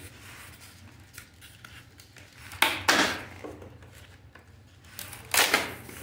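Cardboard-and-foam packaging being handled during an unboxing: two loud rustling scrapes, one about two and a half seconds in and another near the end.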